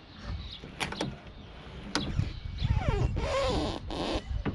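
BMW F30 steering being turned from lock to lock with the front wheel off the ground. A few clicks come first, then about halfway a louder whine that glides up and down in pitch, with a rasping noise, as the steering moves.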